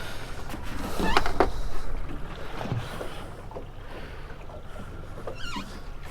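Open-water ambience on a small fishing boat: a steady low rumble of wind and water, with a short squeaky chirping sound about a second in and again near the end.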